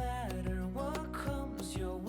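Background music: a slow song with acoustic guitar.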